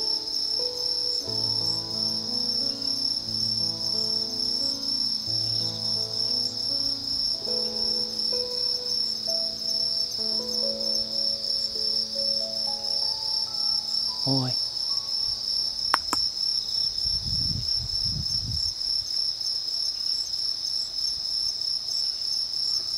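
Insects chirping in a steady high-pitched trill, with faint music underneath. A brief rising glide sounds about two-thirds of the way in, followed by a click and a low rumble.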